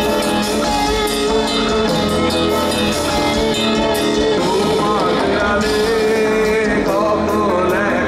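Live heavy metal band playing loud: electric guitar, bass and drums holding long chords, with a wavering, bending melody line coming in about five seconds in and again near the end.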